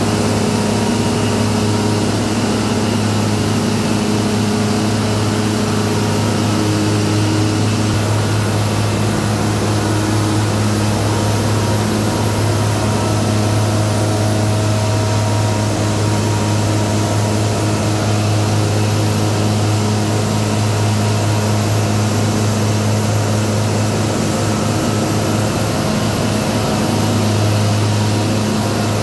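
Heavy diamond grinding rig running continuously inside a road tunnel, cutting an NGCS texture into the concrete road surface with its water tanker in tow: a loud, steady low engine hum over a dense grinding hiss.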